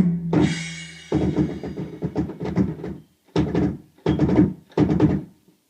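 Alesis DM10 electronic drum kit being played through its module in short bursts: a hit with a ringing decay about a quarter second in, then several quick drum fills separated by brief pauses, as the kit is tested.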